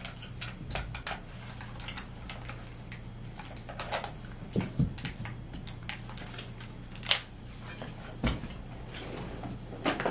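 Scattered light clicks, taps and rustles of small objects being handled, over a low steady hum.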